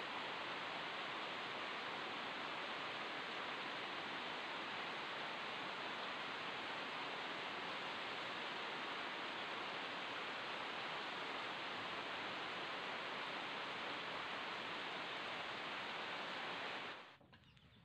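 A steady, even hiss with no tone or rhythm in it, which cuts off suddenly near the end.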